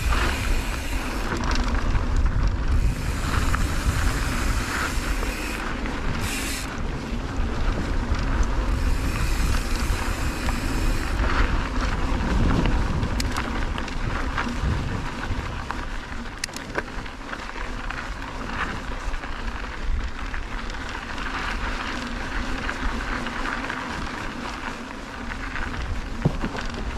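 Mountain bike riding down a loose dirt trail: wind buffeting the camera microphone over steady tyre noise on the dirt, with scattered sharp clicks and rattles from the bike.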